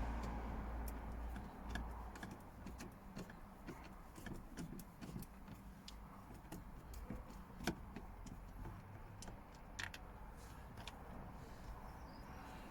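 Scattered small clicks and taps of a screwdriver working on a car door card's screws and trim, irregular and light, over a low rumble that fades after the first second.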